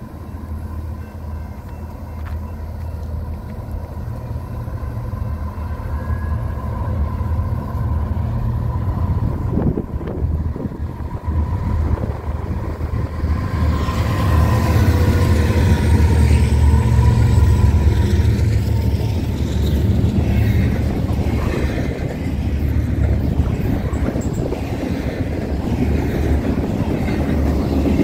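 Union Pacific C44ACM diesel locomotives approaching with a low engine rumble that grows steadily louder, passing close by about halfway through. Then the wheels of double-stack container cars roll past on the rails.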